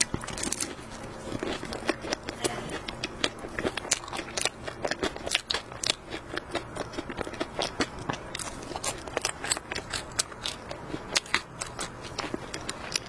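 Close-up crunching and crackling of a cream puff's flaky pastry crust being bitten and chewed, with many sharp crackles in quick, uneven succession.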